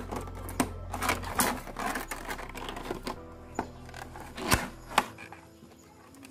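Clear plastic packaging crinkling and tearing as it is pulled open by hand, a run of sharp crackles over background music.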